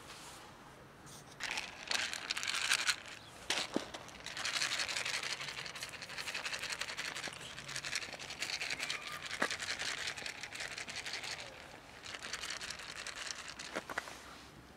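Scratchy rustling and crunching with a few sharp clicks, from a person moving over gravel while handling a plastic food box.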